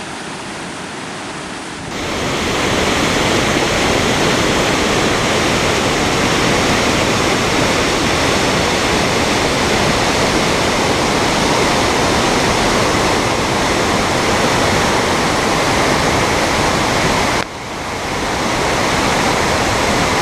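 Datanla waterfall's falling water, a loud steady rush. It grows louder about two seconds in, drops suddenly near the end and swells back.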